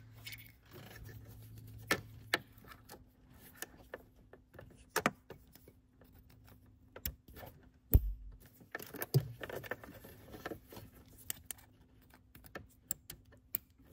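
Plastic MC4-style solar panel connectors being handled and pushed together, a scattered series of small clicks and rattles, with one louder knock about eight seconds in.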